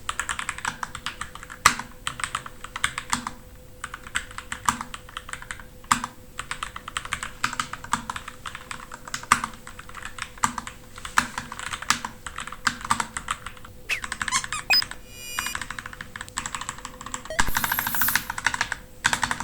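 Typing on a Kemove K68 Angel low-profile 68-key mechanical keyboard with PBT pudding keycaps: a rapid, irregular stream of key clacks, with a denser flurry near the end.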